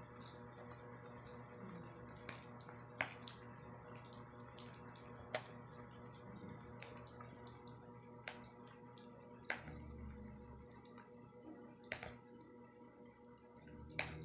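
A person eating spaghetti: soft, wet eating sounds, with a sharp click every one to three seconds, over a faint steady hum.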